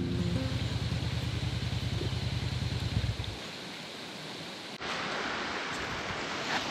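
Motorcycle engine running at low revs, a rapid low pulsing that stops about three and a half seconds in, leaving a steady outdoor hiss of breeze.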